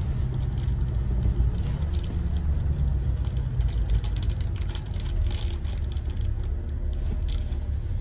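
City street traffic: a motor vehicle engine running close by as a steady low rumble with a faint hum, with scattered light clicks on top.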